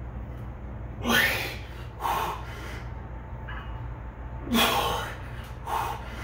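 A man breathing hard under the strain of heavy barbell bench-press reps: four sharp, gasping breaths, about a second in, at two seconds, around four and a half seconds and near the end, over a steady low hum.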